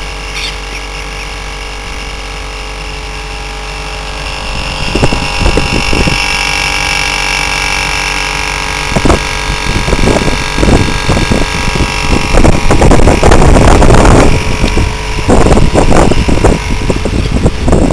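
Mitsubishi 6.1 kW R22 split-system condensing unit running, its compressor and condenser fan giving a steady hum with several steady tones over a hiss of air. From about five seconds in the sound grows louder and irregular gusts of air buffet the microphone close to the unit.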